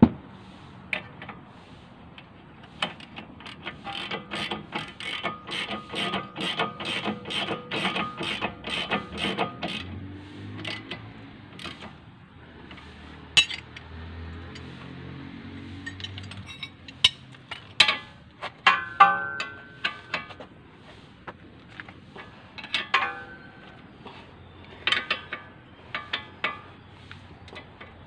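A wrench ratcheting on the bolts of a car's front brake caliper bracket: a run of even metallic clicks, about three a second, for several seconds. Then scattered sharp clinks and knocks of steel tools against the brake parts.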